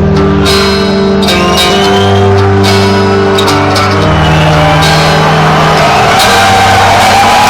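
A metal band playing live, loud. Sustained guitar chords ring over regular drum and cymbal hits.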